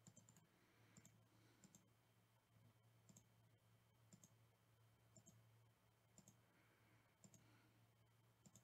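Faint computer mouse clicks, each a quick double tick, coming about once a second over a faint low hum.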